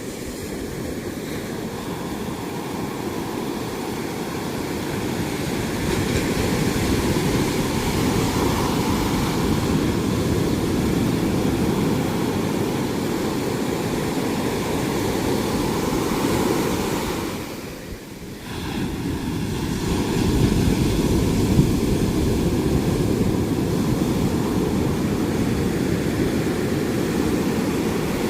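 Ocean surf: a continuous rush of breaking waves, dipping briefly about two-thirds of the way through before swelling again.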